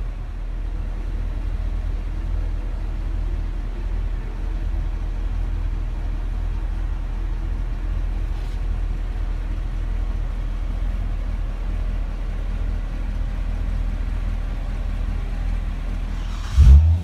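Corvette C6 Grand Sport's 6.2-litre LS3 V8 idling with a steady low rumble. Near the end the engine is suddenly revved in a short loud burst.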